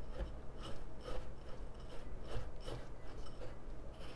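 Coarse bath salts (Dead Sea, Epsom and dendritic salt) stirred with a small spatula in a glass bowl. The crystals make a gritty scraping against the glass in repeated strokes, about two or three a second.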